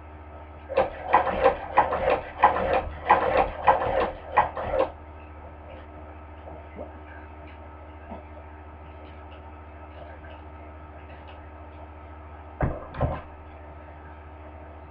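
Hand-crank cobbler sewing machine stitching: a quick run of about a dozen clacks, roughly three a second, for about four seconds, then two more clacks near the end. A steady low hum runs underneath.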